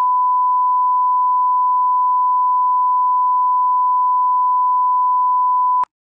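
Broadcast line-up tone, the steady reference test tone that runs with colour bars at the head of a programme tape. It holds one unbroken pitch and cuts off abruptly near the end.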